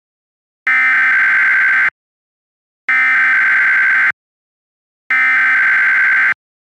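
Emergency Alert System SAME header: three bursts of rapid two-tone digital data, each a little over a second long with about a second's pause between, the coded start of a Required Weekly Test.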